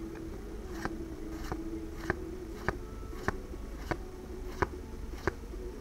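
Sharp, evenly paced clicks, about one every 0.6 s, as Pokémon trading cards are flipped one at a time through a freshly opened booster pack. A faint steady hum sits underneath.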